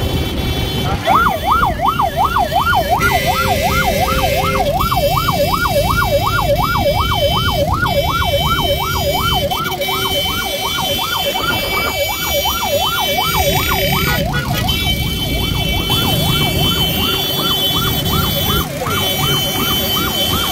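Motorcycle ambulance's electronic siren, a fast warble rising and falling about two and a half times a second. It starts about a second in and gets a little fainter after about fifteen seconds, over the steady noise of motorcycle engines and traffic.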